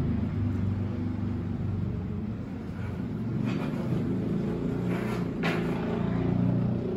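A low, steady engine rumble, with two brief hisses about three and a half and five seconds in.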